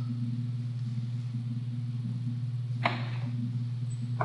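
Steady low electrical hum, with a single sharp computer-mouse click about three seconds in and another at the very end.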